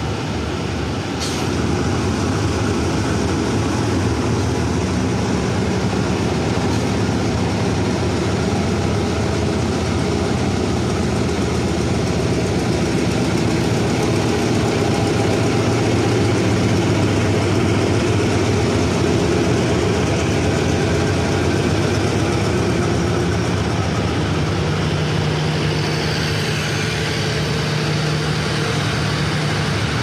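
Diesel-electric locomotive (State Railway of Thailand Hitachi 4513) pulling out at low speed, its diesel engine running loudly and steadily under load as it passes close by; the sound grows louder about a second and a half in.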